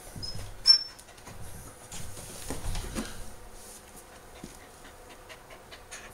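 A frightened miniature Australian Shepherd panting and whimpering, with a sharp high whimper less than a second in, while she struggles against a grooming harness. Rustling bumps of her struggling come about two to three seconds in.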